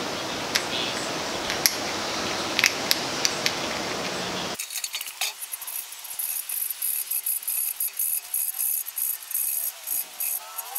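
A hand file rasping back and forth across the teeth of a bandsaw-cut aluminum gear clamped in a steel bench vise, in quick even strokes about two to three a second, deburring the freshly cut teeth. Before that, over a steady background noise, the two aluminum gears click against each other as they are handled, until a sudden cut about four and a half seconds in.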